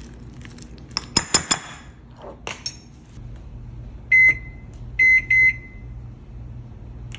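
A few sharp ceramic clinks as a spoon and bowl of oatmeal are handled, then a microwave oven's keypad beeps three times, one beep and a moment later two quick ones, as a two-minute cooking time is entered.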